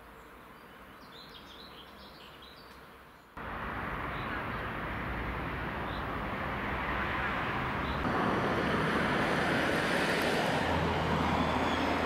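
Faint bird chirps over a quiet background, then about three seconds in a sudden switch to the louder, steady running of TEP70-family diesel passenger locomotives standing at a station, growing a little louder. A low steady hum joins near the end.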